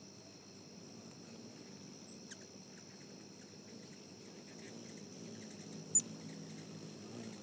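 Steady, faint high trilling of an outdoor insect chorus, with a low rumble beneath it. A single sharp high click about six seconds in stands out above it.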